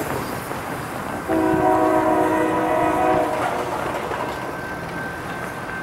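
Diesel locomotive's multi-chime air horn sounding one long blast of about two seconds, starting about a second in, over the steady noise of the approaching freight train. The blast is a warning for the grade crossing just ahead.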